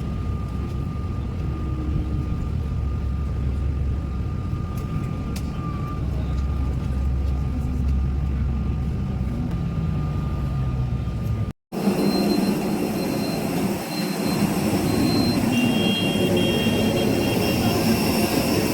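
Steady low rumble of an airport apron bus under way. After an abrupt cut, a jet airliner runs on the apron: an even rush with several steady high-pitched whines.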